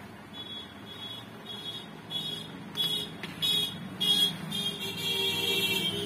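Digital multimeter's piezo buzzer beeping, high-pitched, in short irregular beeps that run together into one longer beep near the end, with a few clicks around halfway. It is the meter's faulty continuity beep.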